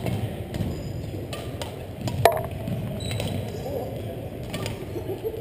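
Reverberant gym hall background with faint voices and scattered light knocks, and one sharp knock with a brief ring about two seconds in.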